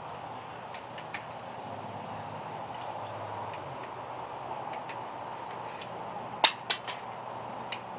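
Scattered small clicks and taps of ceiling fan parts and screws being handled while the blades are taken off, with two sharper, louder clicks about six and a half seconds in, over a steady background hiss.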